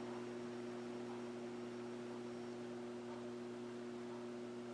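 Steady low electrical mains hum, a few pure tones stacked together and not changing.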